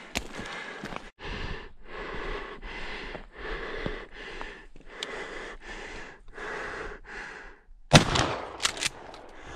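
A hunter breathes heavily and fast right at the microphone, with an audible rush on each breath in and out. About eight seconds in, a shotgun fires a slug with one loud, sharp report, and a few quick sharp clicks follow it.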